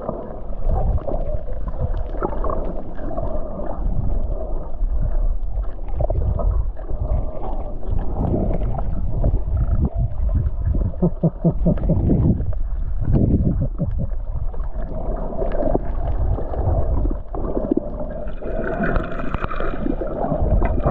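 Muffled underwater noise from a snorkeler's submerged camera: a steady low rumble with irregular gurgles and sloshes of water against the housing. Near the end a brief higher steady tone joins in.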